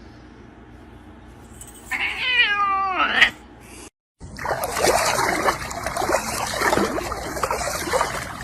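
A cat meowing: one drawn-out, wavering call about two seconds in that falls in pitch at its end. After a short break a loud, steady noisy rush takes over.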